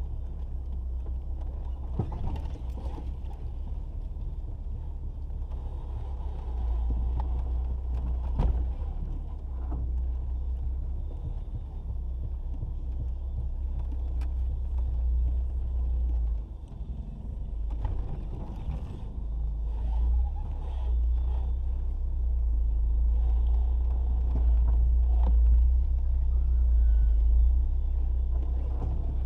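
Jeep Cherokee XJ driving slowly over a rough dirt trail, heard from inside the cab: a steady low engine and drivetrain rumble, with a few sharp knocks and clunks as it goes over rough ground.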